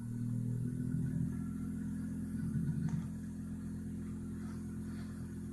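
RV rooftop air conditioner humming as its compressor starts and runs, helped by a newly fitted hard-start capacitor, on a small 2000-watt generator carrying the load. A steady mechanical hum, a little louder over the first three seconds, then level.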